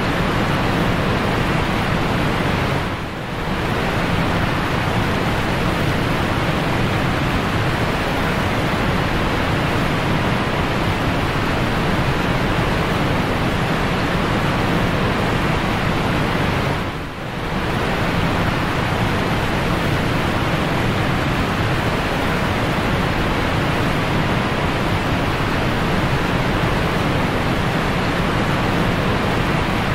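Steady rushing water noise from an aquarium's filtration, with two brief dips, about three seconds in and again just after halfway.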